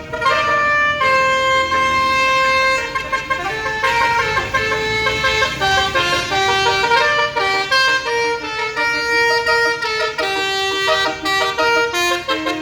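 Tour bus's basuri telolet air horn playing a melody, several horn tones sounding together and stepping from one held note to the next.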